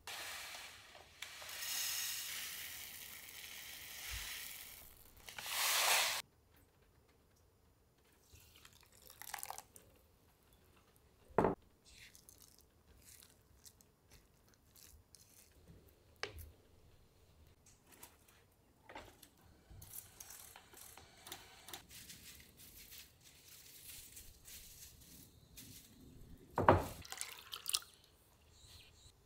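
Kitchen prep sounds, no speech or music. Water hisses for about five seconds, loudest just before it stops abruptly about six seconds in. Then come a few sharp knocks and clinks of bowls and utensils, the loudest near the end, and light crackly rustling of sago pearls stirred in a wooden bowl with a spatula.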